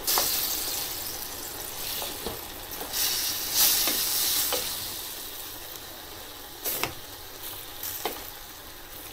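Diced pork and bacon frying in a pan with tomato puree, sizzling while a wooden spoon stirs them, with a few knocks of the spoon on the pan. The sizzle is loudest at the start and again around three to four seconds in, then dies down.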